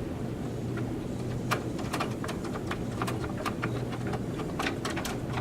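Scattered small clicks and taps of hardware being handled as risers are fitted for a new CPU cooler mount on the motherboard, over a steady low hum.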